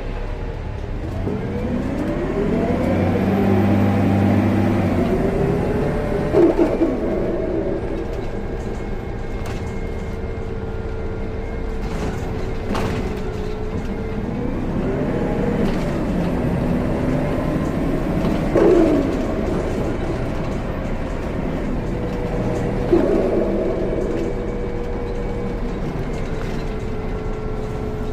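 2014 Gillig Low Floor BRT Plus CNG bus running, its drivetrain whine gliding up and down in pitch several times as the bus speeds up and slows. Three short sharp knocks stand out, about 6, 19 and 23 seconds in.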